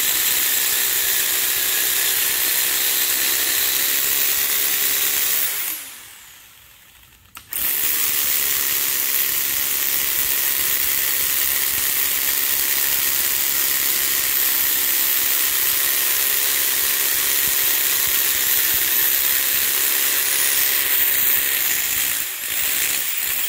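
Corded hammer drill with a half-inch masonry bit boring an anchor hole into a concrete floor, running steadily with a motor whine. It stops for about two seconds some six seconds in, then starts again and runs on until just before the end.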